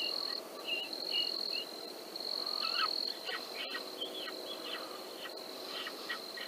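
Night insects trilling in a steady high buzz that swells and fades every second or so, with a run of short, high chirps and faint clicks over it.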